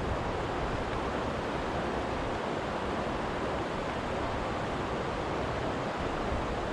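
Steady rush of river rapids around a kayak running a rocky shoal, an even watery roar with no distinct knocks.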